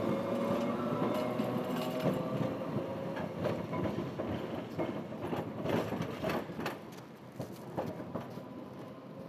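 Sapporo City Tram 3300-series streetcar running past: its motor whine rises slightly in pitch near the start, then a run of sharp clacks from the wheels on the track, fading as the tram moves away.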